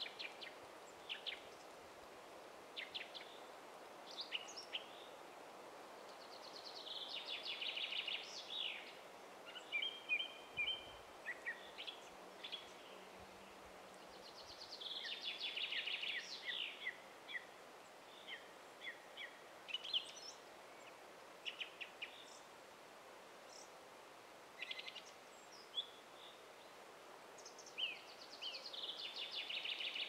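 Forest songbirds singing. One bird gives a rapid trilled song of about two seconds that swells in loudness, three times: about a quarter of the way in, around the middle and near the end. Short chirps and calls from other birds come between, over a faint steady background hiss.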